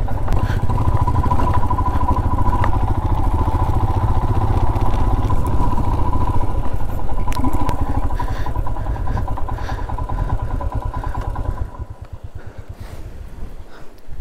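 Royal Enfield Himalayan's single-cylinder engine running at low speed as the motorcycle is ridden slowly over rough ground. It drops back to a slower, quieter idle about twelve seconds in.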